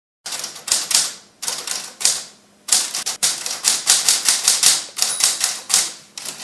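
An old typewriter being typed on: irregular keystrokes, several a second, with a couple of short pauses.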